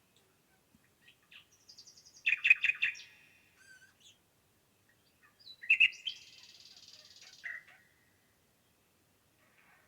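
Songbirds singing: a quick run of repeated notes about two seconds in and another song phrase around six seconds in, with a few faint chirps between.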